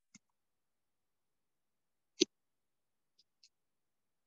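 Near silence broken by one sharp click about two seconds in, with a faint tick at the start and two faint ticks a little past three seconds.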